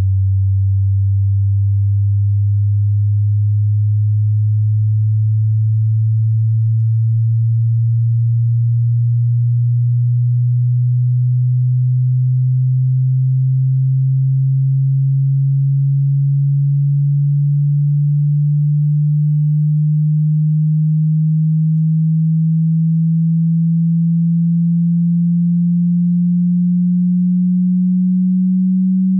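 Pure sine-wave hearing-test tone, held at a constant loudness and gliding slowly and evenly upward in pitch, from a low hum near 100 Hz to nearly 200 Hz.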